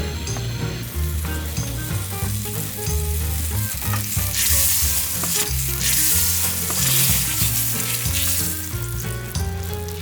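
Food frying in a pan, a steady sizzle that grows louder from about four seconds in, under background music.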